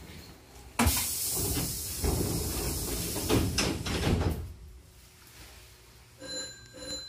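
A train's air-operated double sliding doors closing: a sudden loud hiss of air, then the door panels rumbling shut with a couple of thuds. Two short high beeps sound near the end.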